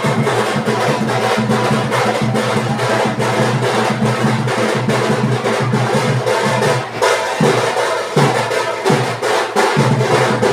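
Drums beating a fast, dense rhythm over sustained musical tones, loud and unbroken.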